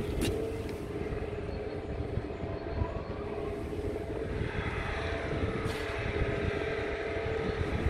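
Truck diesel engine idling steadily: a constant hum with a steady tone over a low rumble, and gusty rumble from wind on the microphone.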